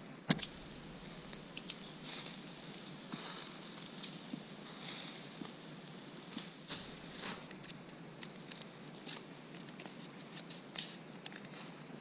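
Faint scattered crackles and light clicks over a low steady background.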